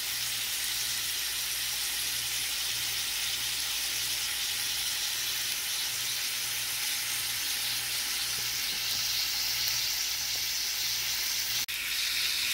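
New York strip steak searing in butter in a nonstick skillet: a steady, loud sizzle. It breaks off for an instant near the end and resumes with the steak turned, seared side up.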